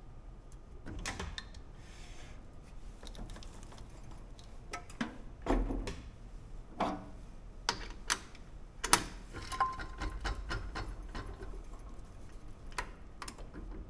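Irregular light clicks and clacks of hard objects, spaced unevenly and a second or so apart at most, over a faint steady low hum.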